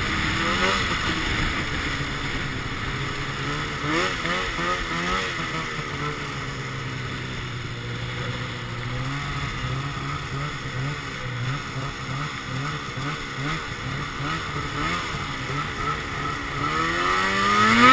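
Arctic Cat XF 800 snowmobile's two-stroke twin engine, fitted with a Sno Stuff aftermarket silencer. Its revs fall away at the start, it runs at lower, wavering revs through the middle, and it revs back up, louder, near the end.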